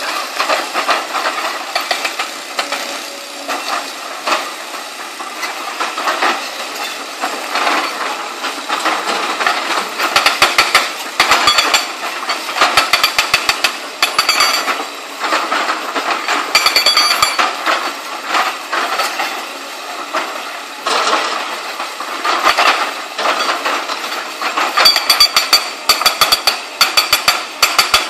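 LiuGong CLG920D excavator's hydraulic rock breaker hammering on rock in repeated runs of rapid blows, each run lasting a few seconds with short pauses between, over the steady running of the excavator's engine.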